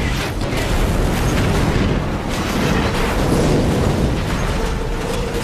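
Film sound effects of a large explosion blowing a vehicle over: a loud, sustained blast rumble, heavy in the bass, with debris crashing through it.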